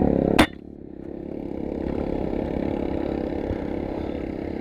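A single sharp shot from a Kral Puncher Breaker .25 PCP air rifle about half a second in, cutting off suddenly, followed by a steady low hum that slowly grows louder.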